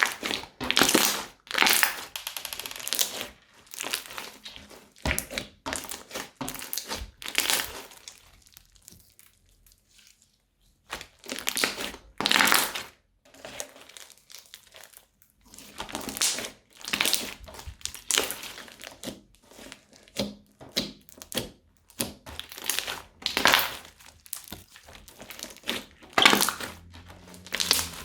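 Crunchy slime being squeezed and pressed, giving repeated crackling, crinkling crunches, with a short pause about a third of the way in.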